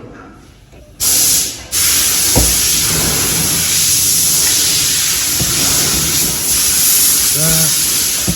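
A loud steady hiss starts about a second in, breaks off briefly, then carries on, with a single knock a little later.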